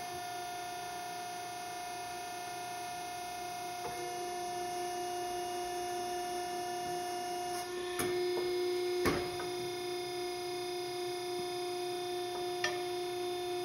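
Iroquois SPP40/75 hydraulic ironworker's motor and pump running with a steady hum that grows stronger from about eight seconds in, as the press brake bends a 3/16-inch steel plate. Three sharp clicks come during the bend.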